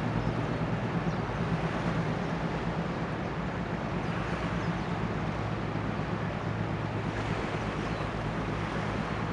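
The diesel engine of a 1978 harbour tug under way, a steady low drone heard across open water, with wind noise on the microphone.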